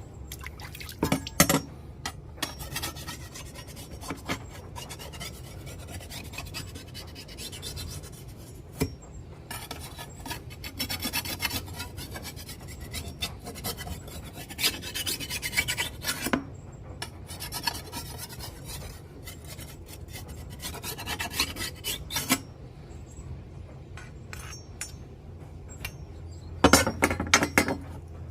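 Small hand-held sandstone rubbed along a steel machete blade to sharpen it: gritty scraping strokes in irregular bouts, with louder scrapes about a second in and near the end.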